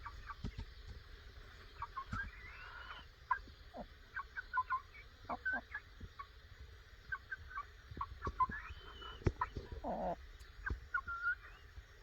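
Chickens clucking and calling: many short, scattered high-pitched peeps and clucks, some sliding up in pitch, with a lower, longer call about ten seconds in.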